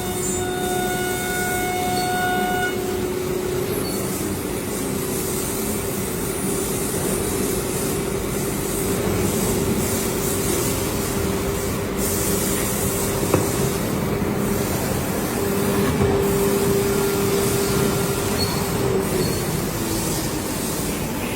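CNC router's 9 kW HQD air-cooled spindle running at high speed, a steady whine over broad machine noise with a few light knocks; near the end the whine falls in pitch as the spindle slows.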